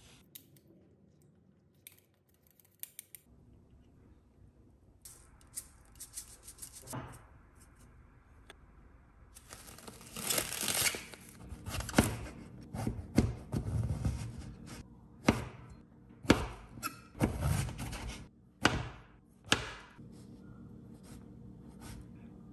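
Kitchen knife slicing through eggplant onto a plastic cutting board, one stroke at a time, each a rasping cut ending in a thud. Light clicks and taps come first; the loud cuts start about ten seconds in and run about one to two a second.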